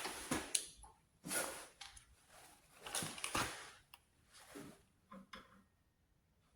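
Scattered short rustles, scrapes and light clicks of bare hands working nuts onto bolts, coming every second or so.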